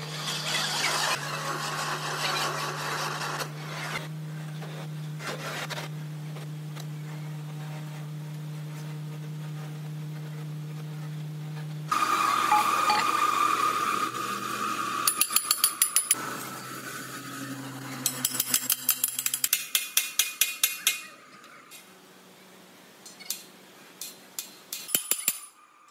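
Heavy manual lathe running with a steady low hum while boring a large steel bearing housing. About twelve seconds in this gives way to louder hand work on the housing, with two quick runs of rapid metallic clicking a few seconds apart and a few knocks near the end.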